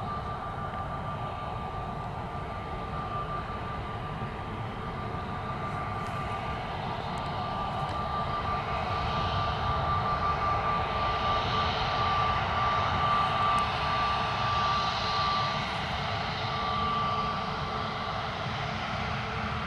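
Airbus A320neo-family jet's engines running at taxi power as the airliner turns onto the runway: a steady rumble with a thin high whine. The sound swells in the middle and eases near the end.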